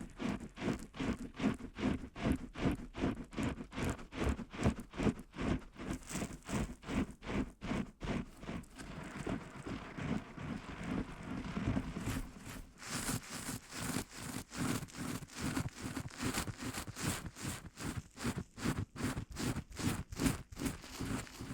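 ASMR trigger sounds: a quick, even run of soft strokes, about four a second, turning brighter and hissier from about halfway through.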